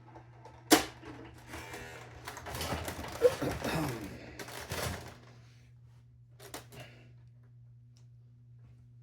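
Brother GX-6750 electronic typewriter being worked while paper is loaded: a sharp click, then a couple of seconds of busy mechanical noise, and a couple of soft clicks near the end.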